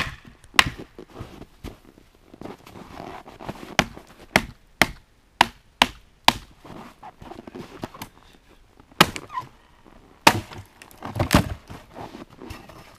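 Firewood being worked on a wooden sawbuck: about a dozen sharp knocks of a hand tool striking wood at uneven intervals, with a little handling and scraping noise between the blows.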